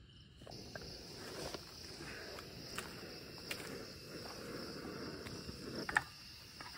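Insects chirring in a steady high-pitched drone, with a soft rustle underneath and a few sharp clicks, the loudest about six seconds in.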